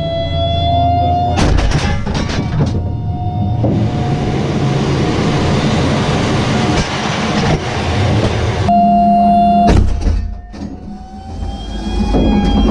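Inside an M1A1 Abrams tank: the gas-turbine engine's steady whine over a heavy rumble, with a cluster of metallic clanks about a second and a half in. The noise drops briefly a little after ten seconds.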